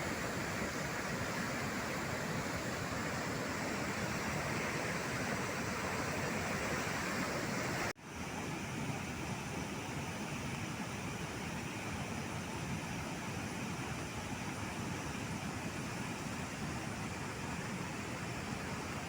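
Steady rush of a large waterfall: a dense, unbroken roar of falling water. About eight seconds in it cuts out for a moment and comes back slightly quieter.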